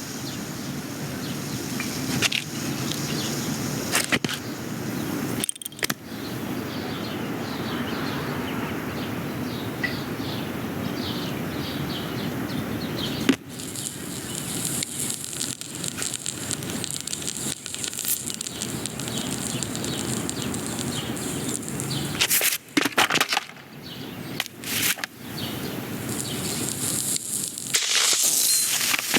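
Film sound effects: a continuous rushing, crackling noise that changes abruptly about halfway through, with a cluster of sharp cracks near the end.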